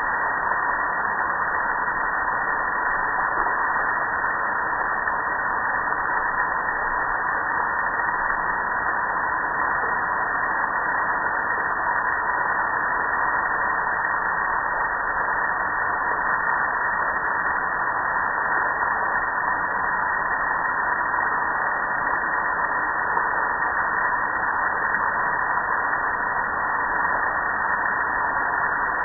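Water spraying steadily onto a propane gas grill, splashing off the metal lid and running down the panels as an unbroken hiss.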